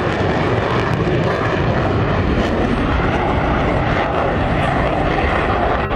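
Blue Angels F/A-18 jet flying overhead, its jet engines producing a loud, steady rush of noise.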